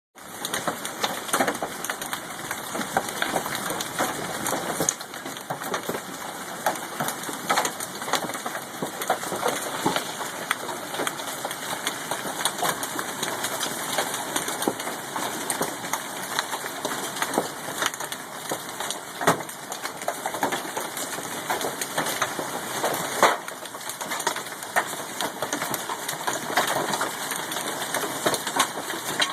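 Hailstones pelting down during a hailstorm: a dense, irregular clatter of many small impacts over a steady hiss, with a few louder strikes.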